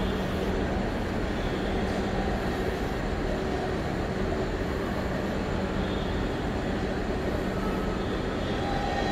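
A Class 69 and a Class 66 diesel locomotive moving off slowly together, their EMD two-stroke V12 diesel engines running with a steady low note.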